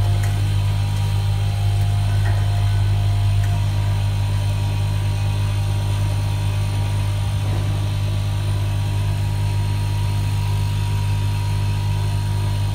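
Automatic nylon cable tie machine running with a steady low hum. A few light clicks come in the first few seconds.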